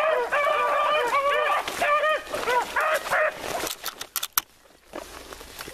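A pack of beagles baying together, several overlapping voices in rapid repeated arched calls, that fades out about three seconds in. A few sharp snaps of brush follow near the end.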